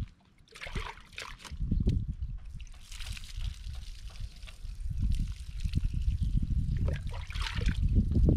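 Water pouring and splashing over a Doberman's coat during a bath, with splashes about half a second in and again near the end, over a low rumble.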